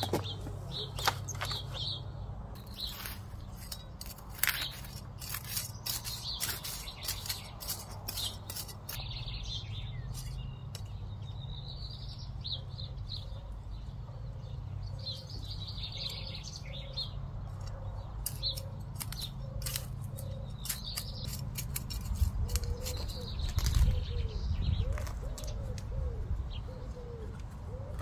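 Birds chirping in a vegetable garden, with many sharp clicks and snips of plants being cut back and cleared by hand. Through the second half a dove coos in low repeated notes.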